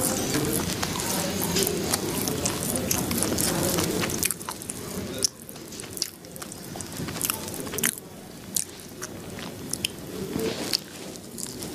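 A person chewing and biting food, with scattered small crunches and clicks. A low steady hum runs under the first few seconds.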